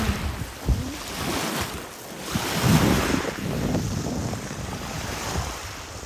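Small sea waves washing onto a pebble shore, mixed with wind buffeting the microphone; one wash swells loudest about halfway through.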